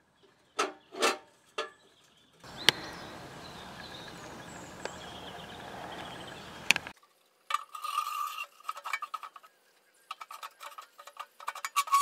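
Light metallic clinks and rattles from the steel parts of a homemade sheet-steel rocket stove being handled, after a few seconds of steady outdoor hiss.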